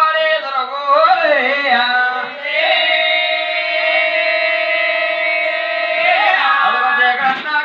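Voices singing a Telugu folk song to the goddess Mangadevi. About two and a half seconds in, one long note is held steady for about three and a half seconds before the melody moves on.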